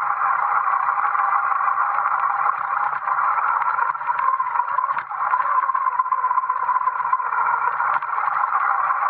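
MY6812 brushed electric motor driving a 3D-printed gear reduction and chain on a BMX under way, giving a steady whine over a rough hiss of chain and tyres on gravel, with a few small ticks.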